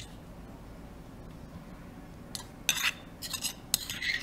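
Metal spoon scraping and clinking against the inside of a stone mortar, scooping out pounded lemongrass paste, in several quick strokes from about halfway in.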